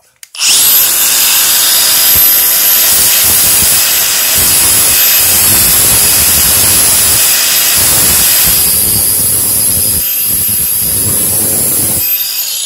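Angle grinder starting suddenly and running at full speed with a loud, high steady whine as its wheel grinds the steel tip of a nail set to sharpen it. It is switched off near the end and winds down with a falling whine.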